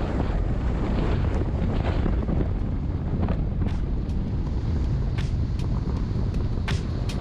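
Heavy wind rushing over the microphone of a moving motorcycle, with road and engine noise underneath and a few sharp ticks scattered through.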